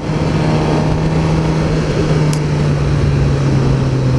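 2015 Suzuki GSX-R 600's inline-four engine running at a steady cruise under a dense rush of riding wind, its note sinking slightly towards the end as the bike eases off.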